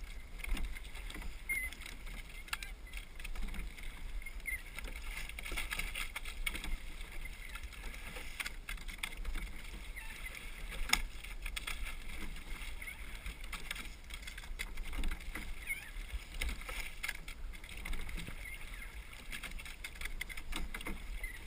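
Eight-oared rowing shell under way: water rushing and splashing along the hull, with scattered knocks from the oars and boat, over a low rumble of wind on the microphone.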